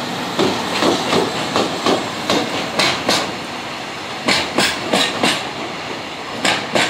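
Wheels of a passing EF65 electric locomotive and its two Chiki flatcars loaded with rails clacking over the rail joints: sharp clacks in quick pairs, about seven pairs, over a steady rolling rumble.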